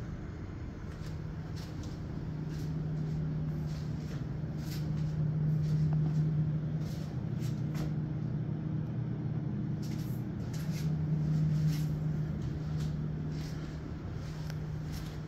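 A steady low mechanical hum that swells and fades twice, with scattered light clicks and taps over it.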